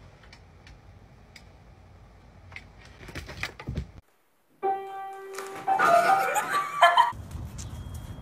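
A short burst of music with a held tone, about two and a half seconds long, starting about halfway through. Before it comes a stretch of low background noise with a few sharp knocks, cut off abruptly.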